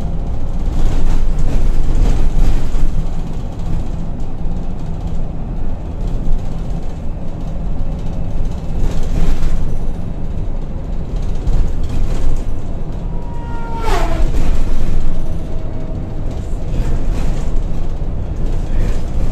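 Volvo B8RLE single-deck bus heard from inside while on the move: a steady low diesel engine rumble with road and body noise. About two-thirds of the way through comes a short high squeak.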